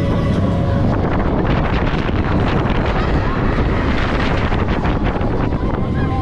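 Wind rushing over the microphone of a Mack Rides Xtreme Spinning Coaster car at speed, with the train's wheels rattling and clattering on the steel track.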